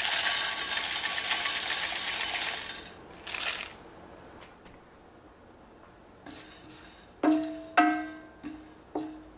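Hulled sunflower seeds poured from a glass dish into a dry enamelled cast-iron pan, a dense patter of seeds hitting the pan for about two and a half seconds, then a brief second pour. Plucked-string music starts about seven seconds in.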